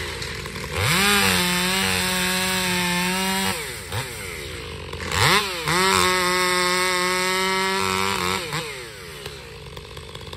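Stihl 500i fuel-injected chainsaw with a Westcoast Saws Barkbox muffler making two full-throttle cuts through a log. It revs up about a second in and holds high under load for roughly two and a half seconds, drops back, then revs up again for a second cut of about three seconds before settling to idle.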